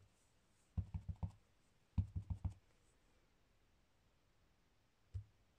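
Clear acrylic stamp block knocking down onto paper on a craft mat while a stamp is pressed onto a card. There are two quick runs of about four dull knocks each, the first about a second in and the second a second later, then a single knock near the end.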